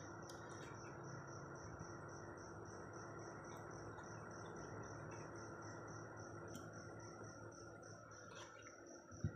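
A cricket chirping steadily, a high pulsed trill at about four to five chirps a second, over a low steady hum. A few faint clicks of a plastic spoon scraping papaya flesh, and a single knock near the end.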